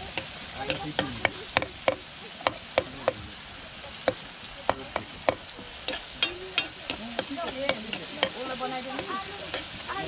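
Onion, chilli and tomato masala sizzling in a pan as it is stirred, with a sharp knock from the stirring utensil against the pan about two to three times a second.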